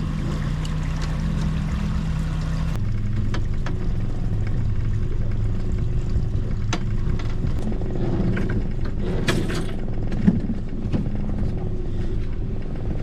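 Boat motor running steadily at trolling speed, a low even hum whose pitch drops suddenly about three seconds in, with a few faint clicks.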